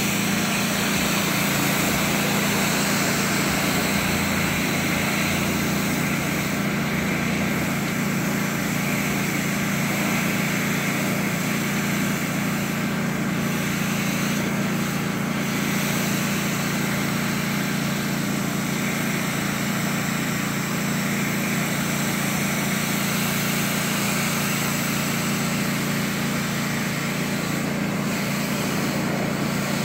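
Pressure washer running steadily: a constant motor-and-pump drone under the hiss of the high-pressure water jet striking a concrete sidewalk. The hiss dips briefly a few times.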